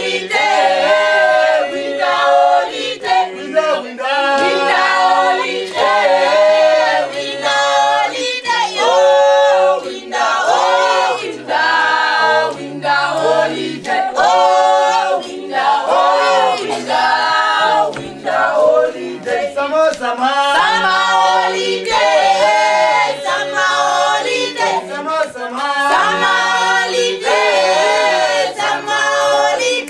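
A group of men and women singing together a cappella in harmony: a lively song in short rhythmic phrases, with a low bass part under the higher voices.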